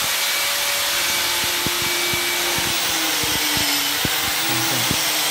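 Corded electric drill-driver running in short spurts with a steady whine, with clicks and taps of work on the cabinet, over a constant hiss.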